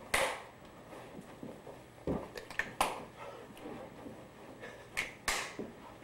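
Two people scuffling in mock sparring: about five short, sudden swishes and thumps, the loudest one right at the start and two close together near the end.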